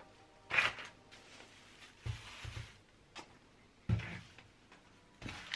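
Groceries being unpacked onto a kitchen counter: plastic packaging crinkling and rustling, and packets and cartons set down with several soft thumps, the sharpest near the middle.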